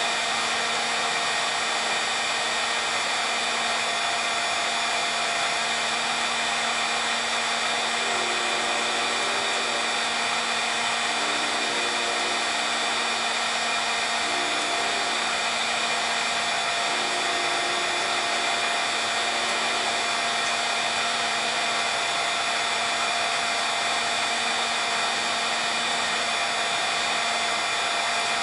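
A 1500-watt heat gun running steadily, a constant rush of hot air with a steady whine from its fan and element.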